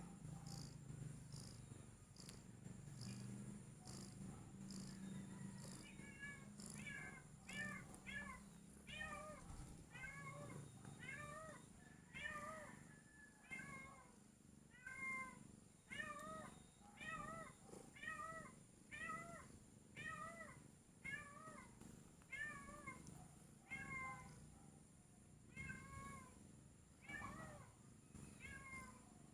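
A heavily pregnant domestic cat, days from giving birth, meowing over and over in short rising-and-falling calls about once a second, beginning about six seconds in. A low rumble comes before the calls start.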